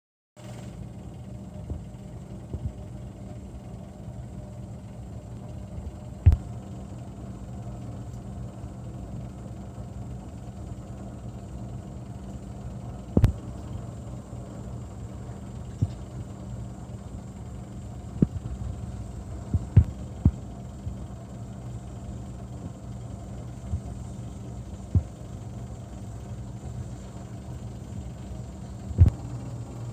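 A steady low hum with scattered sharp knocks and taps, the loudest about 6, 13, 20 and 29 seconds in.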